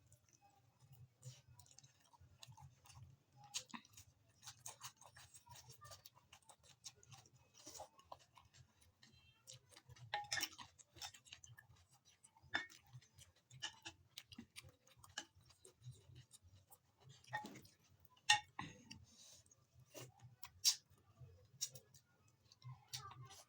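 Close-miked eating sounds: chewing and mouth smacks of rice and chicken curry, broken by irregular sharp clicks.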